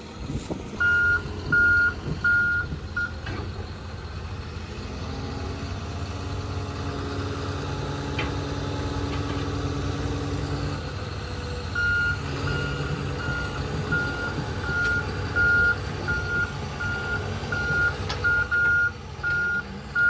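Heavy vehicle's reversing alarm beeping at one steady pitch, roughly one beep every 0.7 seconds, over a large engine running. A few beeps sound at the start, then there is a pause of about nine seconds with only the engine, and the beeping resumes about twelve seconds in.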